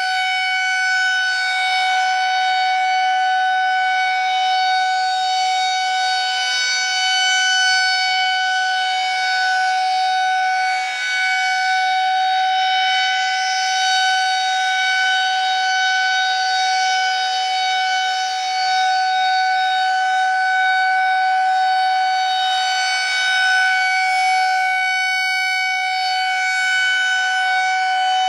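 Federal Signal 2001-130 rotating electromechanical warning siren sounding at full speed, holding one steady, loud tone. Its sound swells and fades slowly as the rotating head sweeps round.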